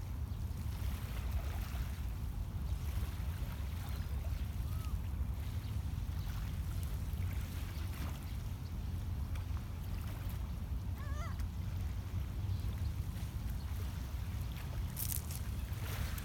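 Lakeshore ambience: a steady low rumble, with small waves lapping at a pebble beach. A bird gives a few short rising chirps about eleven seconds in.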